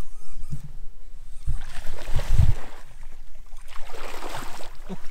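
A hooked bass thrashing and splashing at the water's surface, in two bursts of splashing about two and four seconds in, with dull low thumps.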